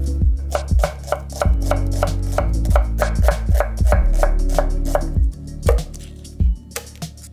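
Chef's knife chopping onion on a wooden end-grain cutting board: a quick, even run of knife strikes, about four a second, thinning to a few scattered strikes near the end.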